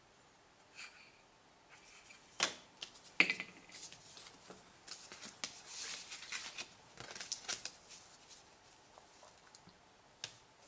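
Small handling sounds on a workbench: a couple of sharp knocks as an aluminium filter canister and ruler are put down, then rustling and sliding of a paper template and a plastic sheet, with another click near the end.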